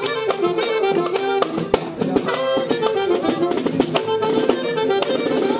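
Norteño music: an accordion playing the melody over a steady drum beat.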